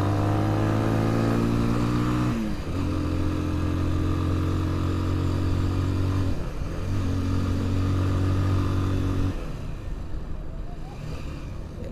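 Motorcycle with a modified exhaust pulling under throttle, its steady engine note broken by two short dips about two and a half and six and a half seconds in as gears are changed. About nine seconds in the throttle closes and the note fades to a quieter rush as the bike slows.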